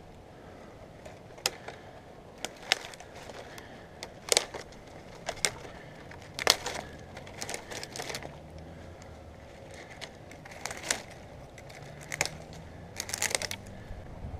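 Dry dead twigs and ivy vines crackling and snapping as a tree climber moves and grips through them: irregular sharp snaps, with a quick cluster of them near the end.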